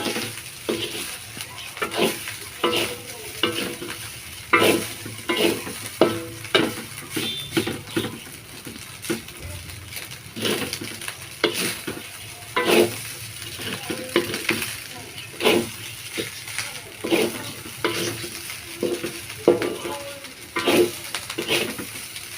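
Spatula stirring and scraping leftover fried rice around a hot pan in quick, irregular strokes, over a steady sizzle as the rice reheats.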